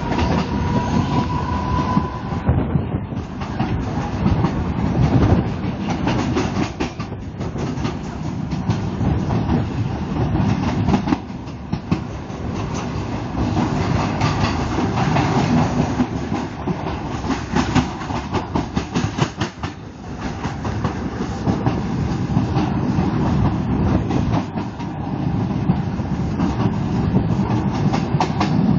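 Mumbai suburban electric local train running at speed, heard from its open doorway: steady rumble of the wheels with a fast clickety-clack over rail joints and points. A faint whine rises in pitch over the first couple of seconds.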